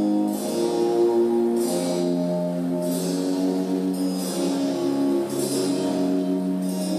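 Skater's short-program music playing: held instrumental notes with a light high shimmer that comes back about every second.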